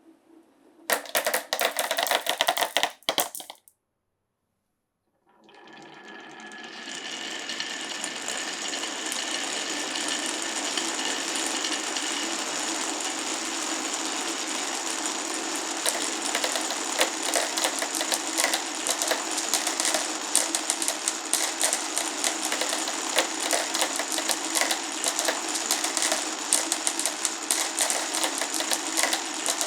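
Many marbles rolling and clattering along a wooden and plastic marble-run track, a dense continuous rattle of small clicks. A short loud burst of clatter comes first, then a sudden cut to silence, and the rattle then swells up over a few seconds and holds steady.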